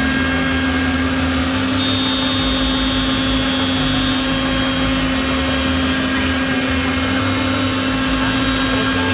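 Three-head CNC mortising machine's router spindles running steadily as they cut mortises into wooden workpieces: a constant machine hum with several steady high tones over cutting noise.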